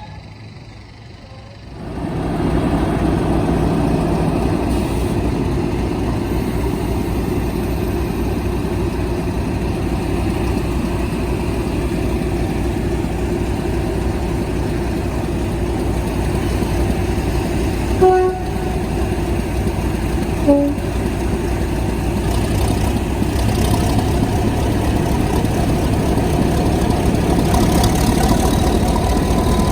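Mainline diesel locomotive engine running with a loud, steady rumble that comes in suddenly about two seconds in. The locomotive's two-tone horn gives two short toots about two and a half seconds apart, the second lower than the first.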